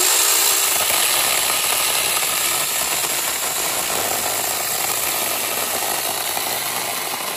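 Handheld 6-inch TomyVIC battery mini chainsaw starting up and running steadily as it cuts through a small tree limb.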